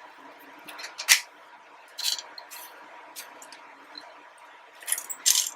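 Plastic model kit runners and their plastic bags being handled and laid out, giving a series of short plastic crinkles and clicks. The loudest come about a second in and near the end.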